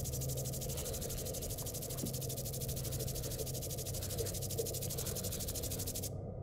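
Stage sound score: a dense, rapidly pulsing high buzz, like insect chirring, over a steady low hum. The high buzz cuts off abruptly near the end, leaving the low hum.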